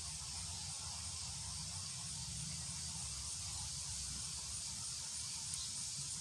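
A steady hiss over a low hum, cutting off abruptly at the end.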